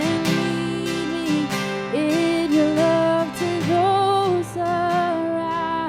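Worship song: long sung notes with vibrato over strummed acoustic guitar and band accompaniment.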